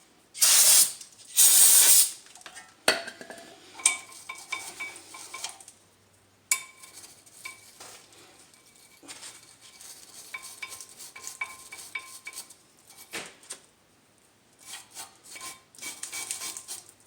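Two short hissing sprays of aerosol brake cleaner in the first two seconds, then scraping and rubbing with light metal clinks as the rusty caliper bracket is cleaned.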